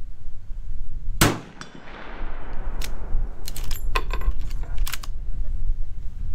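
A single shot from a Marlin 336 lever-action rifle in .30-30 Winchester about a second in, with a long echo. It is followed a couple of seconds later by a quick series of metallic clicks and clinks as the lever is worked to eject the spent case and chamber the next round.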